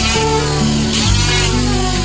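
Background music: held bass notes and a melody changing every half second or so, with gliding higher tones.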